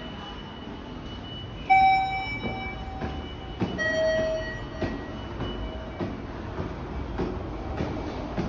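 Footsteps climbing stone station stairs, roughly one step a second, over a steady underground hum. Two loud ringing pitched tones sound about two seconds apart, the second one lower.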